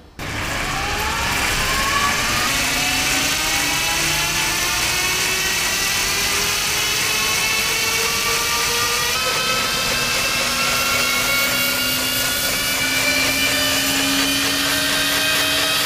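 Electric motorcycle's Agni motor and belt drive whining under power on a rolling-road dynamometer, rising steadily in pitch as the rear wheel spins up, over a steady rushing noise.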